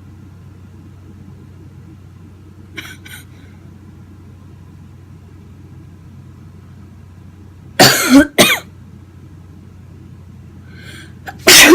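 A man sneezing loudly, his nose itching: a sharp double burst about eight seconds in, then a bigger, longer sneeze near the end after a faint breath in.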